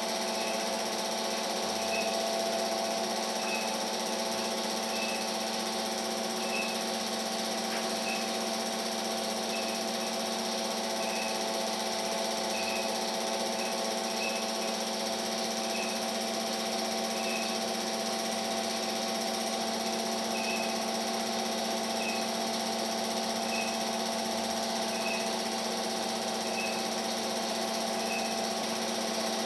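A small motor running steadily with a constant hum. A short high squeak or chirp repeats about every one and a half seconds over it.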